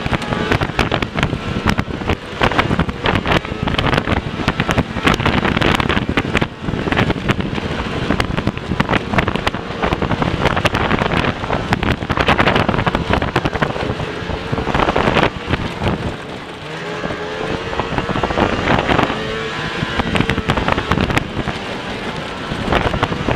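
Snowmobile ridden fast over bare, snowless ground: the engine runs under a constant rattling and knocking of the skis and track on dirt and brush, its pitch rising and falling a few times with the throttle. Wind noise on the microphone.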